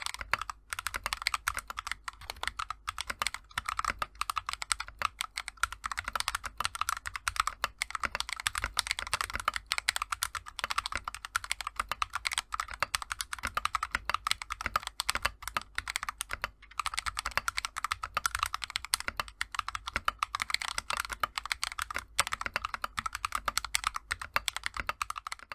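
Typing on a mechanical keyboard fitted with Akko Lavender Purple tactile switches (polycarbonate top housing, nylon bottom housing, POM stem): a fast, continuous stream of keystroke clacks with a brief pause about two-thirds of the way through.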